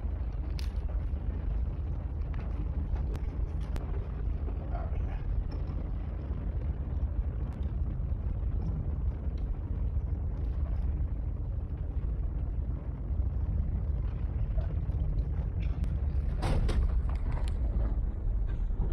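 Fire burning: a steady low rumble with scattered faint crackles, and a sharper crackle about sixteen and a half seconds in.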